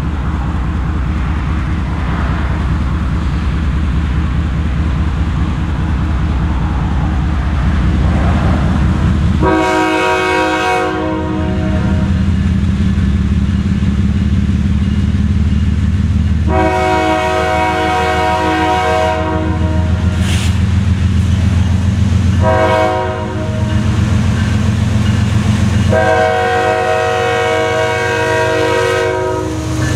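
CSX GE ES44AH diesel locomotive approaching with its low engine rumble under four blasts of its air horn: two long, one short, one long, the grade-crossing warning signal.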